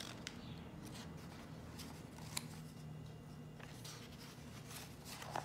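Paper pages of a picture book being handled and turned: faint rustles and light taps, with one sharper click about two and a half seconds in and a fuller page rustle near the end.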